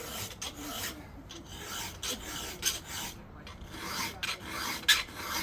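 Round chainsaw file rasping across the cutter teeth of a saw chain in repeated hand strokes, sharpening the cutting edge to put the hook back in a beat-up tooth.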